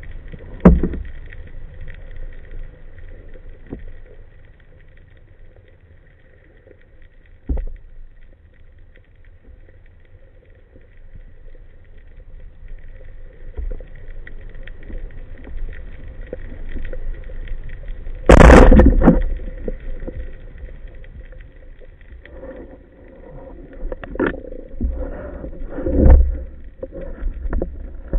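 Underwater recording of a speargun hunt: low water rumble with a few faint knocks, then about two-thirds of the way through a single loud sharp shot as the speargun is fired and misses the fish. A few more knocks and clunks follow as the spear and its line are handled.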